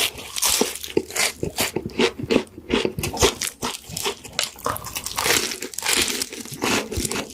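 Close-miked ASMR eating sounds of fast food: a run of crisp, crackly crunching and crinkling with bites and chewing.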